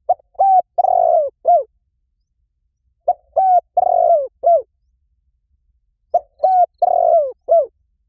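Spotted dove cooing: three phrases about three seconds apart, each of four notes, short–short–long–short, the third note the longest.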